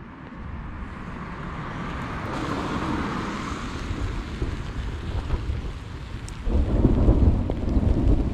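Thunder rumbling in a thunderstorm, with rain falling. The rumble slowly builds, then breaks into a louder, crackling roll about six and a half seconds in.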